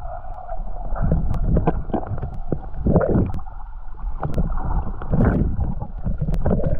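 Muffled underwater water movement heard through a submerged action camera: low rumbling and sloshing that swells twice, with a few faint sharp clicks.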